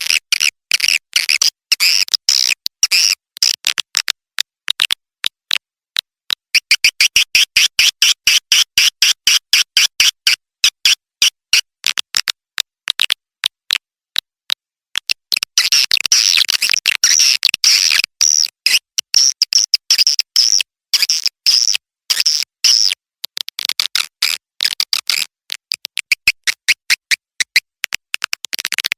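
Edible-nest swiftlet calls on a swiftlet-house lure recording: rapid, dense trains of sharp chirps and twitters in bursts a few seconds long, broken by short pauses. It is the call sound played to draw swiftlets into a nesting house, mixed with chick begging calls.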